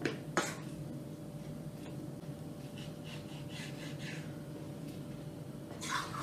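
Measuring cup scooping flour in a steel bowl: short scrapes and soft rustling of flour, with a brief rush near the end, over a faint steady hum.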